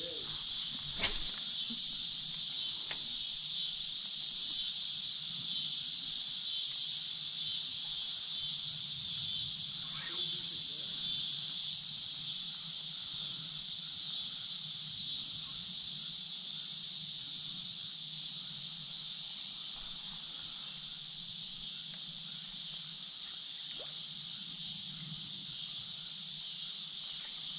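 Steady, high-pitched chorus of insects shrilling without a break, with a few faint ticks here and there.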